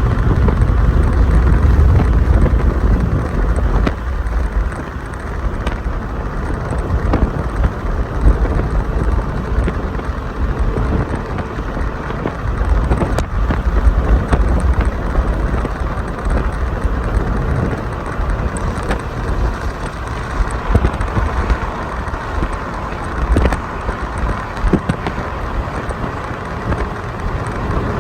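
Steady rain with a deep low rumble, heaviest in the first couple of seconds, and scattered faint ticks.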